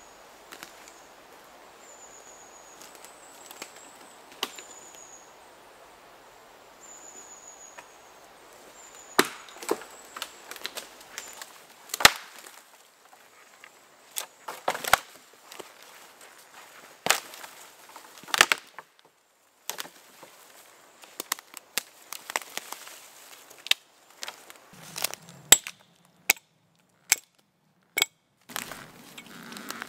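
A bird gives short, high falling calls over woodland quiet, then wood is chopped and broken with sharp cracks and knocks every second or two. Near the end an axe strikes a small conifer trunk in a quicker run of sharp blows.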